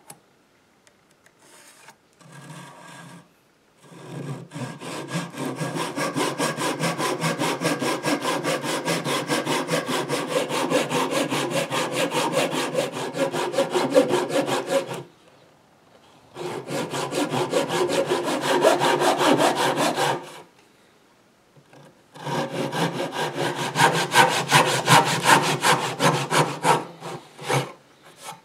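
Fine-toothed backsaw cutting lengthwise down a wooden leg blank in fast, even strokes. It runs in three spells with short pauses between them: a long one starting about four seconds in, a short one, then a last one near the end.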